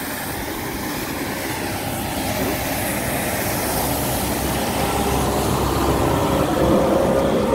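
Citymaster 1650 compact street sweeper running close by, a steady mechanical drone that grows louder throughout, with a steady whine joining in about five seconds in.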